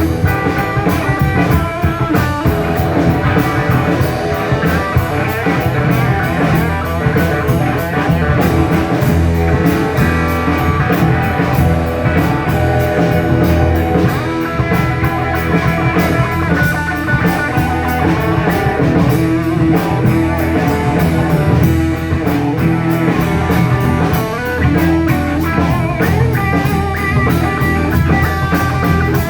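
A live rock band playing an instrumental passage: electric guitar over bass and a drum kit keeping a steady beat.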